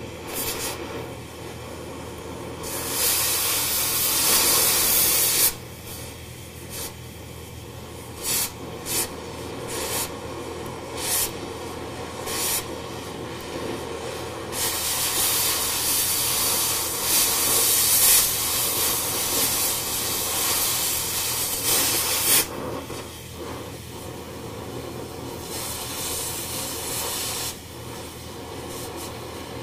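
Oxy-fuel cutting torch hissing steadily as it cuts through an old steel hydraulic cylinder pin support. The hiss gets louder in two long stretches, about three seconds in and again from about fifteen to twenty-two seconds. Short sharp pops come between them.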